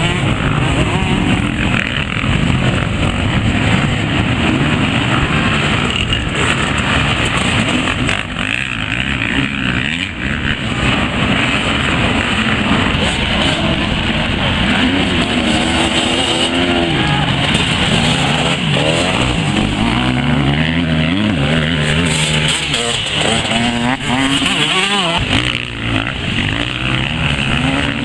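Many off-road dirt bike engines running at once as a pack of enduro riders passes, revving up and down with throttle and gear changes, with single engines standing out in the second half.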